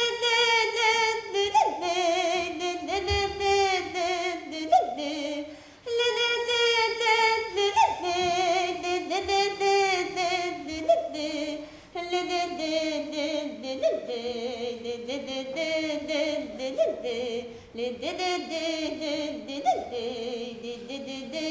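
A young woman singing an unaccompanied solo folk song, her ornamented melody in phrases of about six seconds with short breaths between them.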